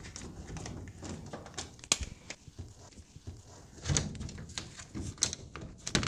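Small clicks and taps of a screw being worked out of an air handler's sheet-metal cover plate, with a sharp click about two seconds in. About four seconds in there is a louder clatter as the plate is handled.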